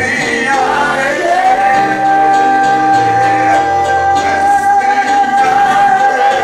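Worship music with singing: a voice holds one long note from about a second in, over changing bass notes.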